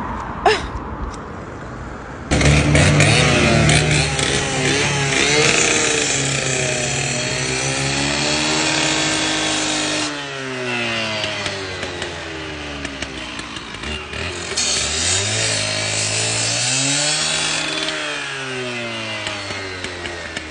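Husqvarna K760 two-stroke petrol cut-off saw starting loud about two seconds in, running at high revs with a harsh grinding hiss as its spinning disc cuts through a steel lock cable. The engine speed then falls and rises again twice before dropping back toward idle near the end.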